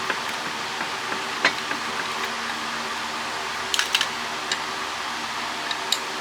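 Scattered light clicks and taps of small metal parts and tools being handled while a satellite-dish LNB is taken apart, with a short cluster of clicks about four seconds in. A steady hum runs underneath.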